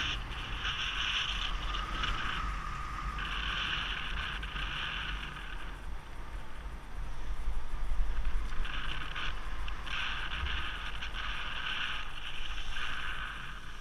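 Wind rushing over the microphone of a paraglider in low, gliding flight, a steady low rumble. Over it, a higher-pitched sound comes and goes in stretches of half a second to two seconds, and the wind swells a little past the middle.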